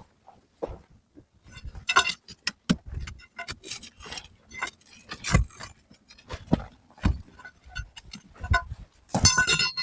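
Hard objects being handled: a busy run of clinks, knocks and clatter, with a longer spell of scraping and rattling near the end.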